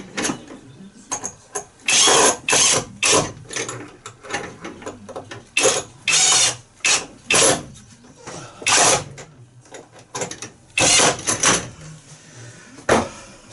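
A hand tool or power driver fastening a winder bracket and its wooden packer block, in about a dozen short bursts. Most come in groups of two to four, roughly two a second, with a last one near the end.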